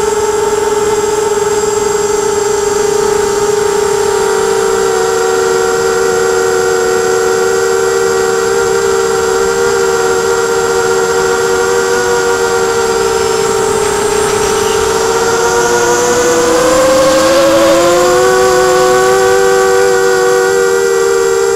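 Quadcopter's electric motors and propellers whining steadily in flight, heard close up from its onboard camera as several close, steady tones. About three-quarters of the way through, the tones split apart, one rising and one falling, then settle back together, and the sound gets a little louder.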